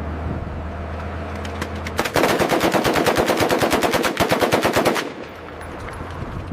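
An M240 7.62 mm machine gun firing one sustained burst of about three seconds at a rapid, even rate, starting about two seconds in. A low steady hum runs underneath before and after the burst.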